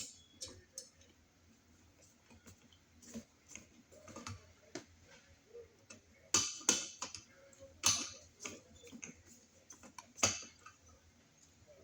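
Scattered small clicks and taps of a wall outlet and its metal screws being handled and fitted by hand, with several sharper clicks in the second half.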